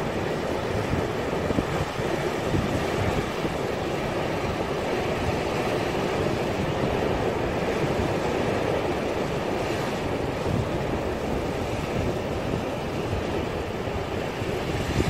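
Steady rushing noise of wind and sea.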